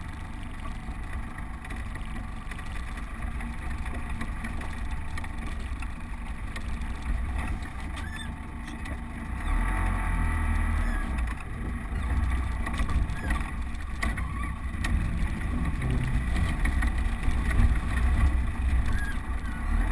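Land Rover Defender driving slowly over a rutted dirt track, heard from inside the cab: a steady low engine and drivetrain rumble that gets louder about halfway through, with a few short knocks from the body and suspension over the ruts.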